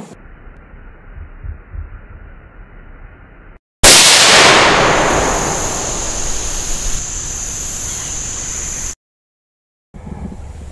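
A single loud rifle shot from a Browning T-Bolt .22 Magnum about four seconds in, fading over a couple of seconds into a steady hiss with a high whine that cuts off abruptly.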